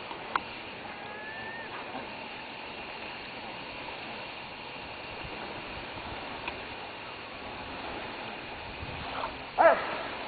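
A steady wash of shoreline water, then a Schnauzer barks near the end.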